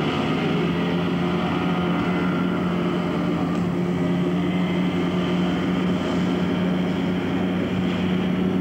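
Outboard motor of a rigid inflatable boat running steadily at full speed, a constant drone under the rush of water and wind.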